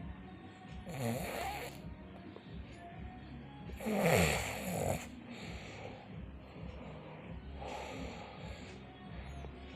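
A man snoring in his sleep: three snores about three seconds apart, the loudest near the middle.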